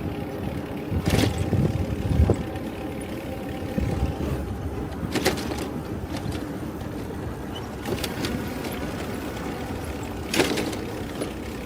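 Vehicle engine and road noise running steadily, with a few short knocks scattered through.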